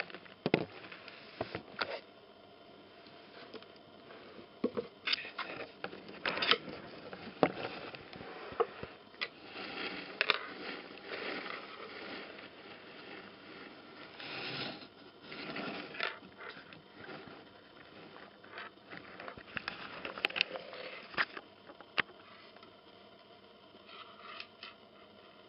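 A cat scuffling with a string toy on a woven rug: irregular scratching and rustling of claws and fur against the rug, with scattered sharp clicks.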